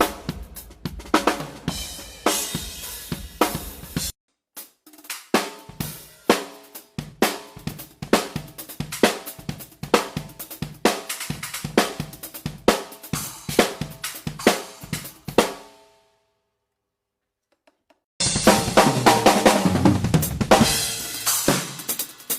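Acoustic drum kit played in quick fills and grooves: snare, bass drum, hi-hat and cymbals. It cuts off abruptly a few times, with a short silent gap about two-thirds of the way through before the playing picks up again.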